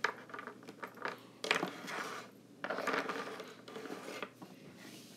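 Crinkling and rustling of a foil candy wrapper being handled by hand, in two or three short stretches.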